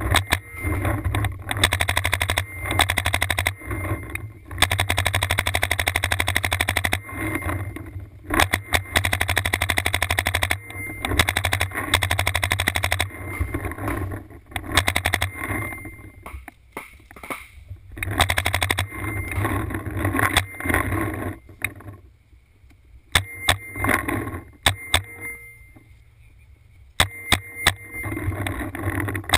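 Paintball markers firing rapid strings of shots, in bursts lasting several seconds with short pauses between them.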